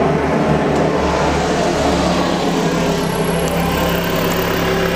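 An engine running steadily with a continuous low drone, over a broad rushing noise.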